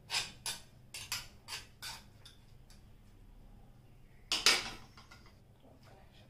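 A steel spoon clinking and scraping against a stone mortar, about six quick clicks in the first two seconds. A heavier knock of the stone pestle comes about four seconds in.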